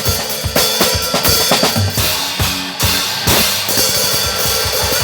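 Drum kit played along with a recorded worship song: busy snare and bass-drum hits, a big cymbal-like crash about three seconds in, then a fast, even low pulsing.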